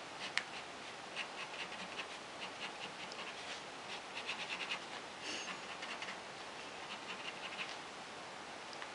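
Pen scratching on sketchbook paper in clusters of quick short strokes, as when hatching, with one sharp tap about half a second in.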